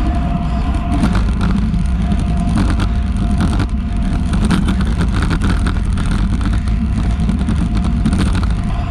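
Road bike riding at about 37 km/h: a steady rumble of wind buffeting a handlebar-mounted GoPro's microphone, mixed with the hiss of tyres on asphalt, rougher between about one and five seconds in, with a faint steady high tone throughout.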